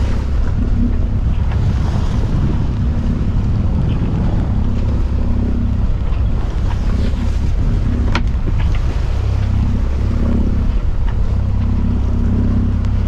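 Strong wind buffeting the microphone as a steady low rumble, over the rush of steep waves against a sailing yacht's hull in 20–25 knots of wind. A single sharp knock about eight seconds in.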